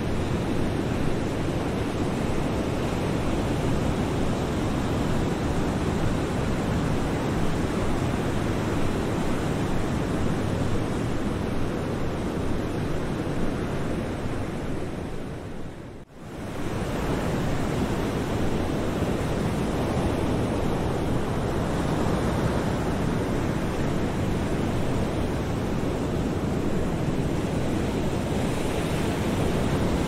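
Ocean surf washing onto the shore as a steady, even rush of noise. It fades out briefly about halfway through and fades back in.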